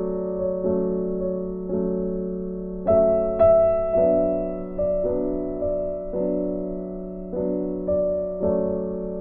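Background music: a slow, gentle piano melody, its notes struck about once a second and left to fade.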